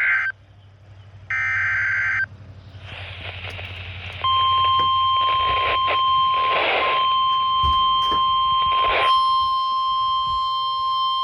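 NOAA Weather Radio broadcasting an Emergency Alert System SAME header for a severe thunderstorm warning: a short burst of warbling data tone, a second burst a second later, then a brief hiss. About four seconds in, the steady, high 1050 Hz warning alarm tone starts and holds, with further high beeping tones joining near the end.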